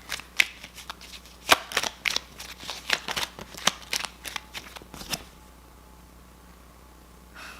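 A deck of tarot cards being shuffled by hand: a quick run of papery snaps and flicks that stops about five seconds in.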